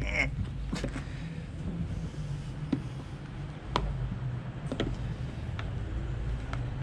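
Scattered sharp clicks and knocks, roughly one a second, as the stock plastic air box cover of a Predator 420cc engine is pried at its tabs to pop it off, over a steady low hum.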